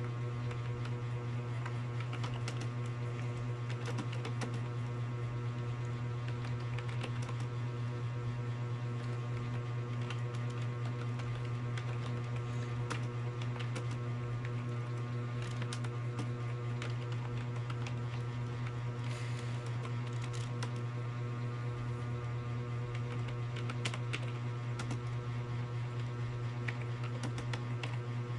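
Typing on a computer keyboard: scattered, irregular key clicks over a loud, steady low hum.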